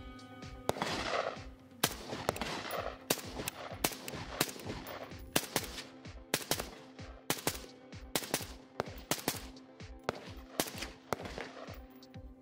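Suppressed Zastava ZPAP M85 5.56 AK rifle firing a rapid string of single shots, about two a second, with background music underneath. The rifle is cycling steadily from the hand-fitted 84S clone magazine, which the shooter says ran flawlessly.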